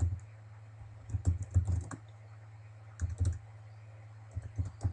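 Typing on a computer keyboard in three short runs of keystrokes, over a steady low hum.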